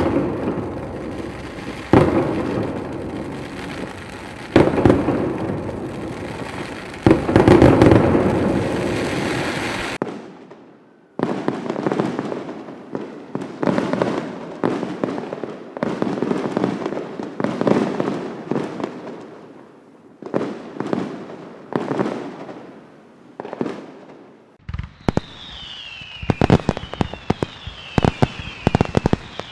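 Fireworks display: aerial shells bursting one after another, each sharp bang followed by a rumbling decay and crackle. Near the end come rapid sharp cracks with a run of falling whistles.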